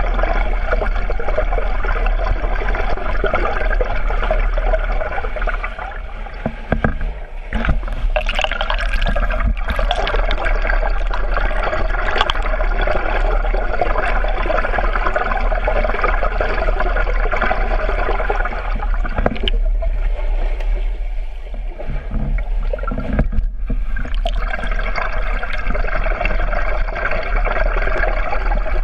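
Swimming-pool water heard through a submerged camera: a continuous churning, bubbling wash of water with a steady low hum underneath, easing briefly twice.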